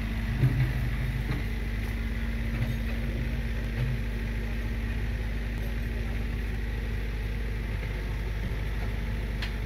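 Komatsu PC45 mini excavator's diesel engine idling steadily, with a short louder low bump about half a second in.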